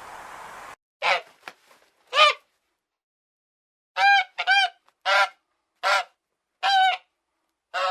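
Domestic goose honking, a series of about eight short honks spaced unevenly with dead quiet between them.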